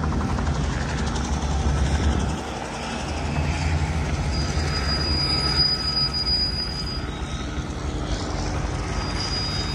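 A low, steady engine rumble from a nearby vehicle or aircraft, dipping briefly about two and a half seconds in and then resuming. A thin high tone sounds for a couple of seconds in the middle.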